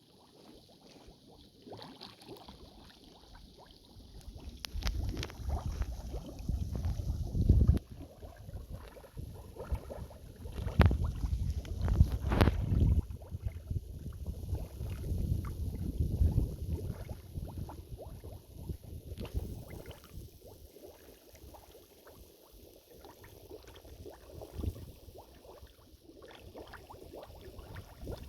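Mud volcano gurgling and bubbling as natural gas forces its way up through wet, salty clay mud. A low rumble swells and fades in several surges, with a few sharp pops, and is loudest in the first half.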